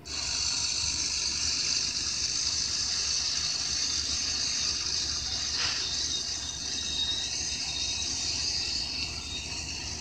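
Wheel trencher at work, heard through a TV speaker as a steady rushing hiss that starts abruptly.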